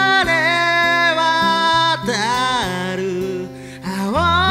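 A man singing long held notes while playing an acoustic guitar; the voice drops away briefly and a new note rises in near the end.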